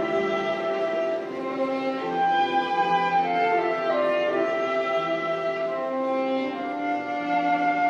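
Violin and flute playing a duet in long held notes.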